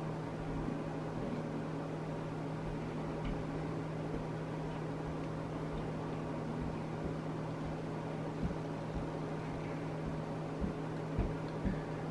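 Steady low hum with a faint hiss of room tone, and a few soft low thumps in the last few seconds.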